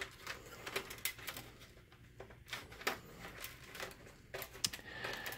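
Faint, scattered small clicks and taps of handling: an LED driver circuit board and its wires being pushed into the end of an aluminium LED tube.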